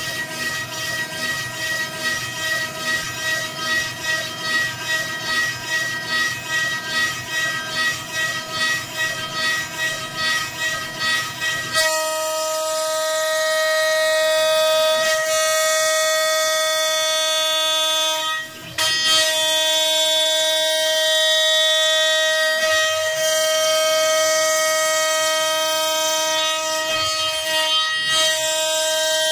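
CNC router spindle milling a wooden block with a high whine. For the first dozen seconds the sound pulses about twice a second as the cutter works the wood; after that it settles into a steady whine, with one brief dip.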